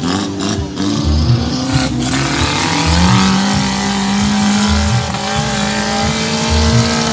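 Off-road 4x4's engine revving hard under load. Its pitch climbs twice, once near two seconds and again near three seconds, then holds high.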